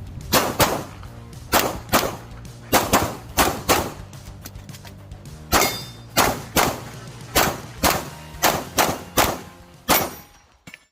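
CZ P-10 F pistol fired in a fast string of about twenty shots, often in quick pairs, with a pause of about a second and a half near the middle. The shots stop shortly before the end.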